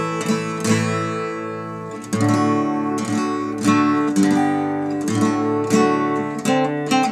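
A five-course instrument converted from an old Yamaha acoustic guitar, played with a pick: notes and chords plucked and strummed, ringing between strokes.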